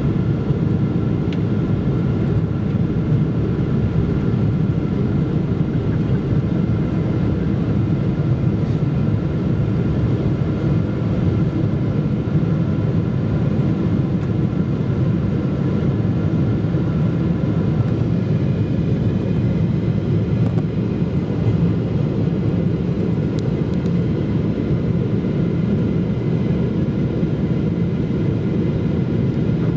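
Steady airliner cabin noise inside a Boeing 777-200ER: a low, even roar from its Rolls-Royce Trent 800 engines and the airflow, with faint steady whining tones above it.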